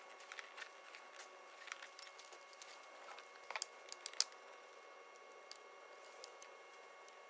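Faint scattered clicks and taps from hands working on a DPF differential pressure sensor in an engine bay, unclipping it and undoing its mounting bolt, with a short cluster of sharper clicks about three and a half to four seconds in.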